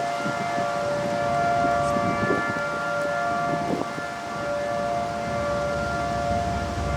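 Federal Signal Model 5 mechanical outdoor warning siren sounding a steady tone during a test, holding an even pitch while its loudness eases slightly about four seconds in and then comes back.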